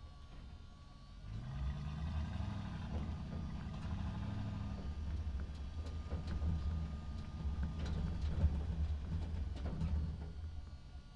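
Truck engine driving through a parking garage. A low engine rumble rises in pitch about a second in as it pulls away, runs on with a few knocks and rattles, and fades near the end.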